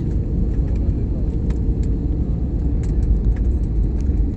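Airliner cabin noise in flight: a steady low rumble of engines and airflow, with a faint steady hum and a few light clicks.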